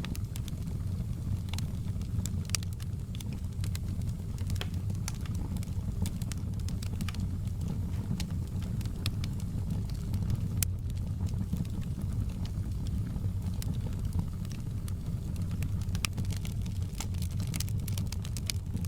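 Wood fire burning in a fireplace: a steady low rumble of flames with frequent sharp, irregular crackles and pops.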